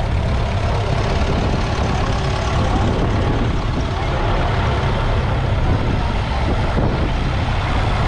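Tractor diesel engine running steadily.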